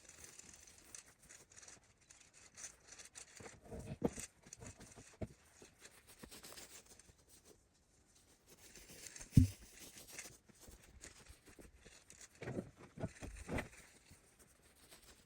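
Faint, scattered knocks and clatter of fence posts and gear being unloaded from a side-by-side utility vehicle, with one louder dull thump about nine seconds in and a few more knocks near the end.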